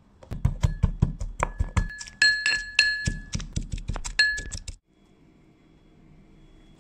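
Metal pestle pounding garlic cloves in a metal mortar: rapid knocks, about four a second, each making the mortar ring. The pounding stops abruptly about three-quarters of the way through, leaving only faint background.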